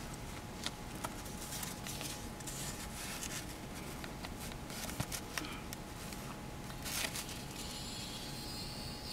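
Sheets of paper and clip leads being handled, rustling, with a few sharp clicks over a steady hiss.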